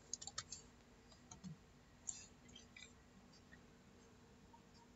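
Faint computer keyboard keystrokes, a quick run of clicks at the start and a few scattered taps over the next couple of seconds, then near silence.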